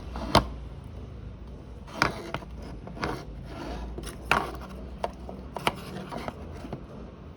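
Several sharp clicks and taps, irregularly spaced, of small tools and parts being handled on a workbench, over a low steady hum.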